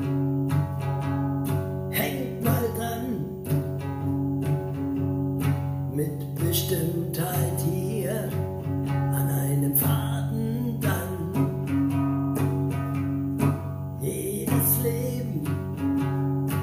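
A guitar strummed in a steady chord accompaniment, with a man's voice joining in at times.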